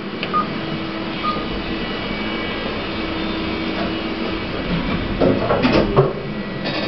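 KONE lift with a third-generation EcoDisc gearless motor travelling, a steady hum and rumble from the car and machine. A few clunks and rattles come about five seconds in and again near the end.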